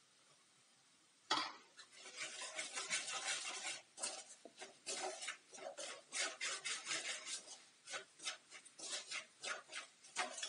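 Perforated steel skimmer stirring and scraping spices frying in oil around a stainless steel kadai. After a sharp knock about a second in come repeated rasping strokes of metal on metal, a couple to the second.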